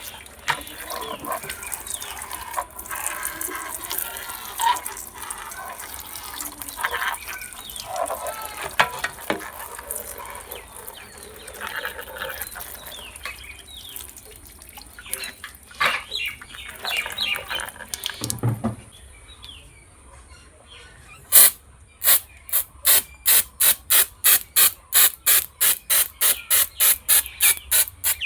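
Water washing over a plastic toy, with splashing, trickling and small scrapes and clicks as the mud is cleaned off. About three-quarters of the way through this gives way to a fast, even run of sharp strokes, about three a second.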